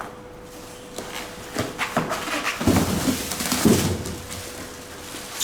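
Packing foam and cardboard rubbing and scraping as a machine is lifted out of its carton, with several knocks. The handling noise is loudest between about two and four seconds in.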